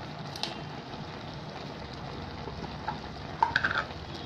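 Pumpkin and prawn curry simmering in a kadai with a steady hiss. There is a small click about half a second in, and a few sharp metal clinks of a utensil against the pan near the end, which are the loudest sounds.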